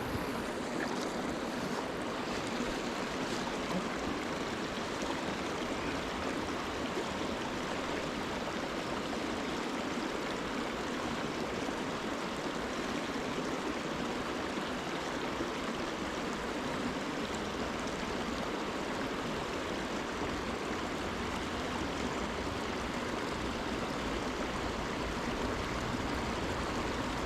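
Steady rush of flowing river water, an even, unbroken hiss.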